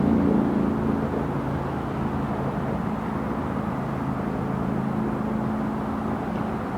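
GO Transit diesel locomotive engine running with a steady low hum over a rumbling background, easing slightly in the first second or two.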